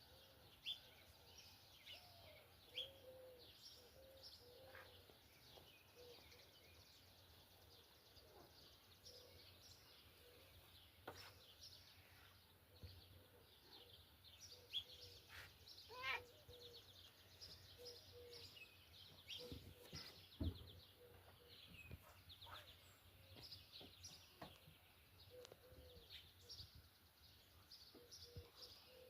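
Faint dawn chorus of several birds chirping and trilling, with a low call repeated again and again. A single low thump comes about two-thirds of the way through.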